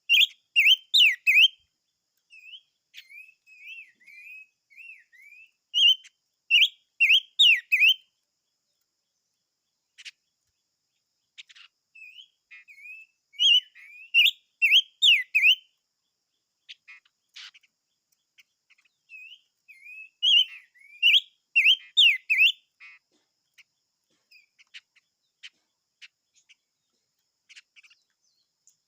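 A songbird, the 'chim ngũ sắc' (five-coloured bird), singing loud phrases of rapid, warbling whistled notes in bouts about every seven seconds. Softer notes and a few sharp clicks come in between.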